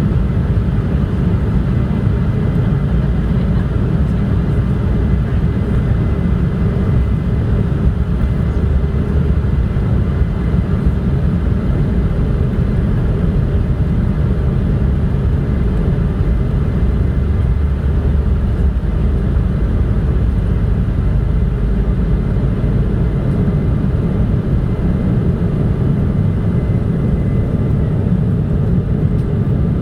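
Steady jet airliner cabin noise: engine and airflow rumble heard from inside the passenger cabin, even throughout, with a faint thin high whine above it.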